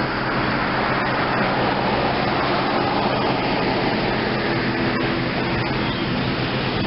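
Road traffic: cars passing on the road, a steady rushing noise of tyres and engines with a low hum beneath.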